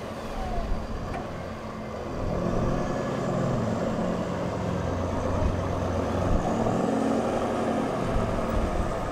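A 4WD ute's engine running under load as the bogged vehicle is pulled out of soft sand on its winch, anchored to a buried Deadman sand anchor. The engine picks up and grows louder about two seconds in, then holds steady.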